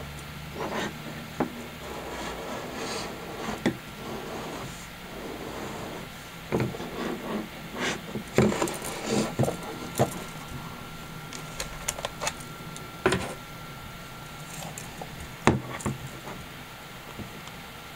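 Handling noise from a Canon TX 35mm SLR: hands rubbing and gripping the metal body, with scattered sharp clicks and knocks as the Canon FD zoom lens is twisted off its breech-lock mount.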